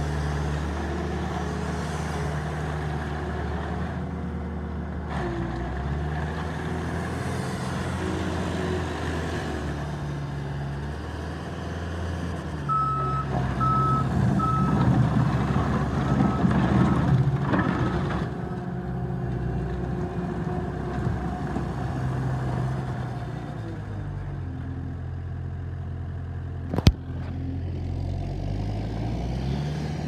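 Bobcat T870 compact track loader's diesel engine running, its pitch stepping up and down as the hydraulics work the lift arms and bucket. About halfway, three short backup-alarm beeps sound and the machine gets louder for a few seconds as it travels; a single sharp click comes near the end.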